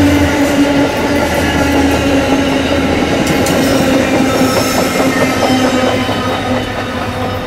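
Amtrak passenger coaches rolling past close by, wheels running on the rails with an even roar, steady humming tones and a few clicks, the sound easing slightly near the end as the train pulls away.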